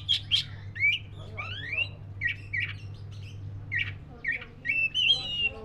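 Oriental magpie-robin of the black-breasted form singing: a quick, varied run of short harsh notes, chirps and slurred rising whistles, with a longer whistled phrase near the end. A low steady hum runs underneath and stops about four seconds in.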